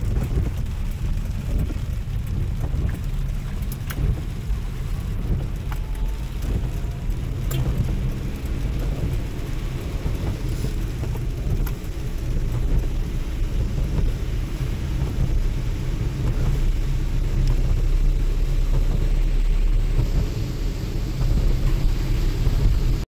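Car interior noise while driving in heavy rain: a steady low rumble of the engine and tyres on the wet road, with rain hitting the car and occasional sharp ticks.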